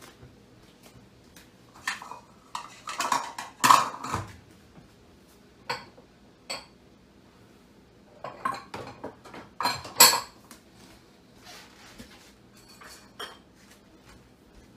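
Dishes and cutlery clinking and knocking as they are handled, in two busy spells about three and ten seconds in, with a few lighter clicks after.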